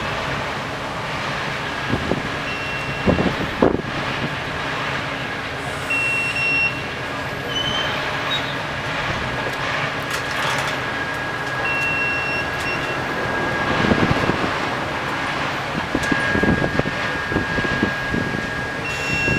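SPMW 8000 rail crane's engine running steadily as it sets a track panel down onto a flatcar, with several clanks of steel as the panel meets the car. A few brief high beeps sound at intervals.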